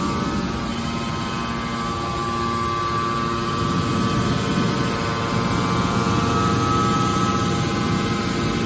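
Hydraulic car baler running: the power pack's pump and motor give a steady mechanical whine over a low rumble, the whine rising slightly in pitch about two thirds of the way through.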